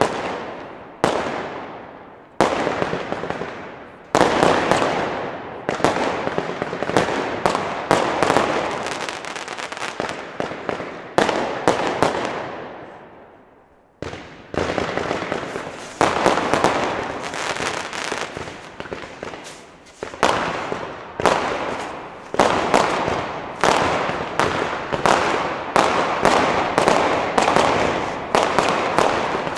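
Consumer firework batteries (cakes) firing: a rapid series of shots and bursts, each with an echoing tail. The shots die away about twelve seconds in, then start again with a dense run of bangs about two seconds later.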